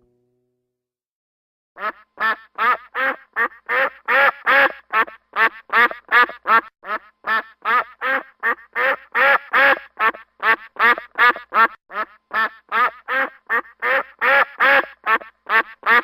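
A duck quacking over and over in a quick, even run of about three quacks a second, starting about two seconds in.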